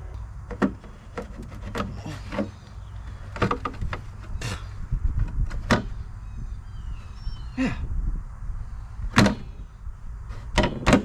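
Scattered metal knocks and clanks as a tractor's battery access cover is worked loose by hand, over a steady low rumble.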